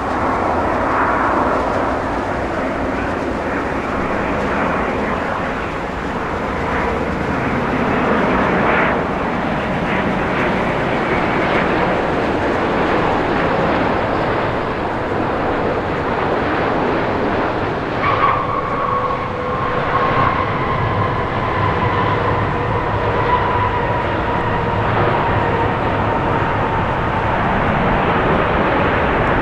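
Airbus A350-900's Rolls-Royce Trent XWB turbofan engines running loud, a steady jet roar. A thin whine joins partway through and slides slowly down in pitch.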